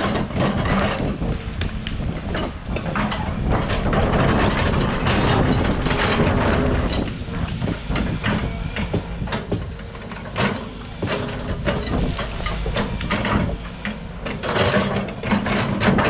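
Backhoe engine running steadily, with irregular knocks and clanks.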